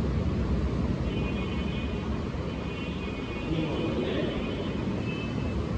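Steady low rumble of classroom background noise, with a faint high thin squeak of a marker writing on a whiteboard from about a second in until near the end.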